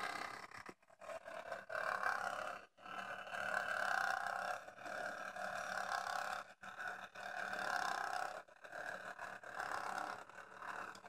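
Small electric motor and plastic gear train of an animated toy figure running with a grinding whir, dipping briefly about every two seconds as the mechanism cycles; the gear train has a fault.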